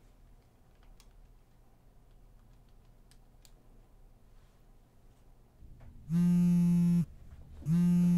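A few faint clicks of cell phone keys being pressed, then a mobile phone signalling an incoming call with two loud, steady buzzing tones, each just under a second long and about two-thirds of a second apart.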